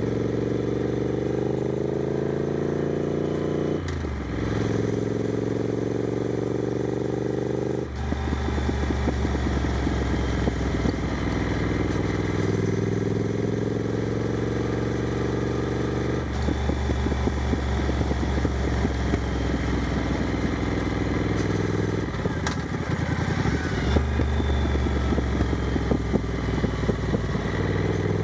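Triumph Scrambler 900's parallel-twin engine through an aftermarket exhaust, ridden on the road. The exhaust note rises in pitch under acceleration and drops back at each gear change, alternating with stretches of choppy, uneven exhaust pulses off the throttle.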